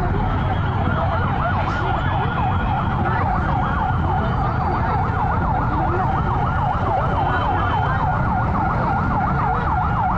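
Emergency vehicle siren in a fast yelp, its pitch sweeping up and down several times a second, over the low rumble of street traffic.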